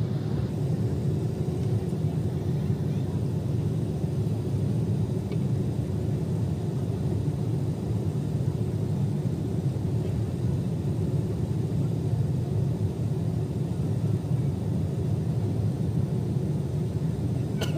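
Steady low rumble inside a jet airliner's cabin as it taxis.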